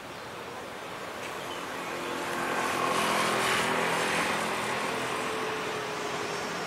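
Light rail tram approaching a station: a rolling rumble on the rails with the hum of its electric drive, swelling to its loudest about three to four seconds in, then easing as a drive tone sags slightly while the tram slows for the stop.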